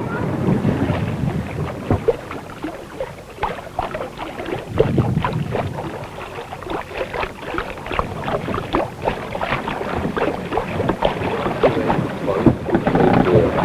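Irregular rustling, flapping and knocking as a heavy canvas sail on a wooden spar is hauled up by hand, with wind buffeting the microphone.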